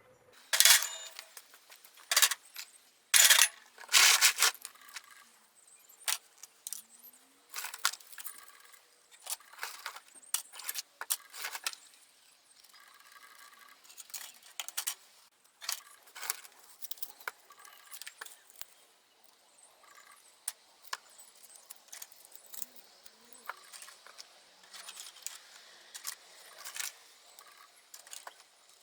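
Small metal parts clinking and clattering as they are handled, irregular and jangly. The loudest clatters come in the first five seconds, with lighter clinks after.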